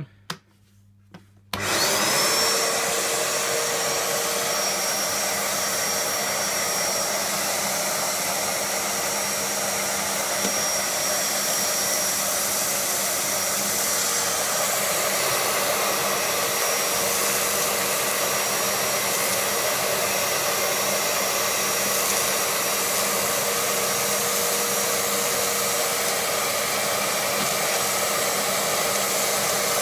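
A shop vacuum's switch clicks and its motor starts about a second and a half in, its whine rising quickly to full speed. It then runs steadily, drawing sawdust up the hose through a homemade cyclone separator bucket.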